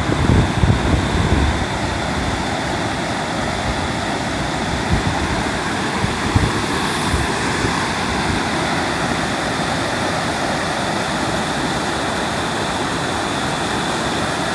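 Pre-typhoon storm weather: a loud, steady rushing noise, with gusts buffeting the microphone in the first couple of seconds.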